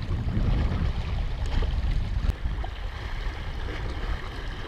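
Wind buffeting the microphone as a low rumble, over small waves washing against breakwater rocks, with one faint click about two seconds in.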